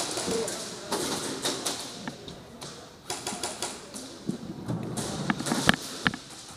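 Airsoft gunfire in a plywood-walled indoor arena: irregular rapid clicks and taps in short clusters, with two sharper knocks near the end.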